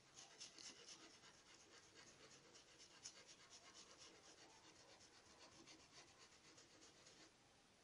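Faint, quick strokes of a paintbrush rubbing paint into a terry-cloth towel at the edge of a stencil, about five strokes a second. They stop shortly before the end.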